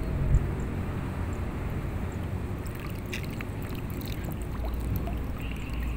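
Water sloshing and gurgling around a wading angler, over a steady low rumble, with a few light clicks about three seconds in.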